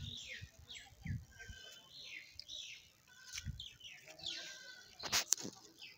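Birds calling in the trees: repeated short, high chirps that sweep downward, with a few held whistled notes. There are some low bumps on the microphone, and a couple of sharp clicks about five seconds in.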